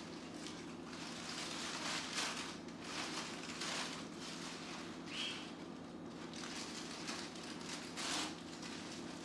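Crumpled paper towel and tissue paper rustling and crinkling in short irregular bursts as the pile shifts, over a steady low hum, with one brief high note about five seconds in.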